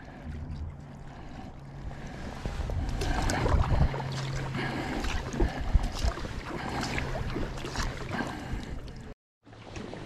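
Kayak paddle strokes on calm lake water: irregular splashing and dripping as the blades enter and leave the water, over a steady low hum. The sound cuts out briefly about nine seconds in.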